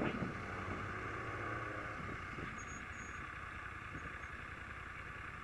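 Small motorbike engine idling faintly and steadily.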